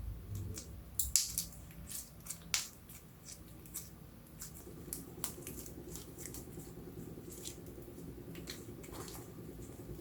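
Clear slime being kneaded and pressed by hand, giving irregular sticky clicks and pops, loudest in the first few seconds.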